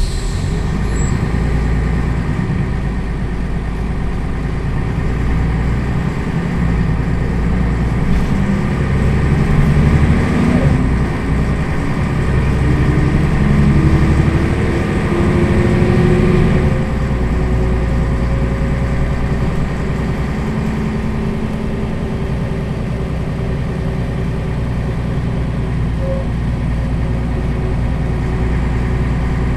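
Mercedes-Benz O 405 city bus's six-cylinder diesel engine idling with the bus stationary, after a brief hiss of air right at the start. The engine sound swells louder for several seconds in the middle, then settles back to a steady idle.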